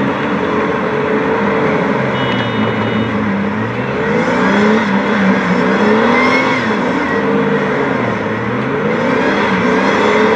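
Jeep Cherokee XJ engine revving up and down over and over as the SUV churns slowly through a deep mud pit, its pitch repeatedly rising and falling, over a steady wash of splashing mud and tire noise.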